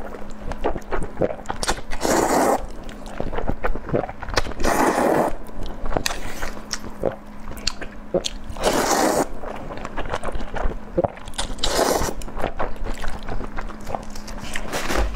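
Close-miked slurping of saucy noodles in four long, noisy pulls, with wet chewing and small mouth clicks between them.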